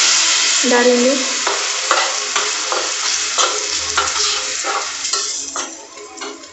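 Milk sizzling loudly in a hot pan of ghee and ground Oreo biscuit, the sizzle dying down toward the end. Over it, a spoon scrapes and stirs the mixture against the pan at about two to three strokes a second.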